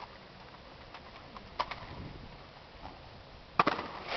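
Sharp impacts from an exhibition rifle drill routine, the slap of rifles being handled and boots striking pavement: a light click about a second and a half in and a much louder crack near the end.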